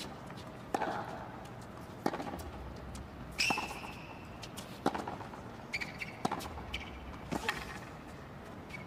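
Tennis rally on a hard court: about six sharp racquet strikes on the ball, one every second and a half or so, with a few short high squeaks between shots.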